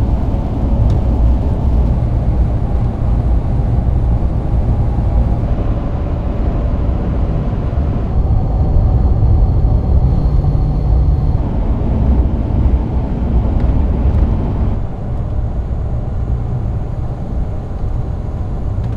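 Steady low engine and road rumble inside the cab of a first-generation Toyota Tundra being driven. Its tone shifts abruptly several times.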